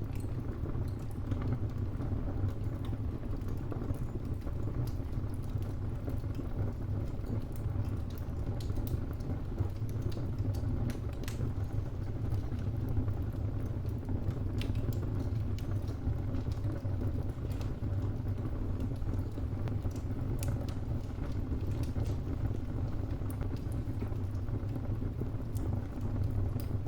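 Wood fire burning in a fireplace: a steady low rumble with irregular sharp crackles and pops from the burning logs.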